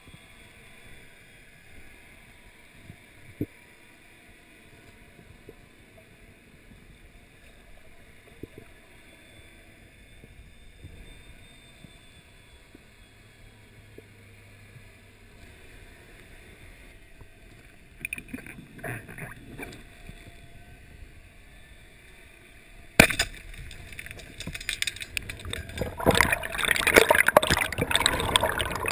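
Underwater sound picked up through a camera housing: a faint steady hiss with a few small clicks, a patch of bubbling bursts about 18 seconds in, and a single sharp knock about 23 seconds in. In the last few seconds, water rushes loudly past the camera as the diver rises toward the surface.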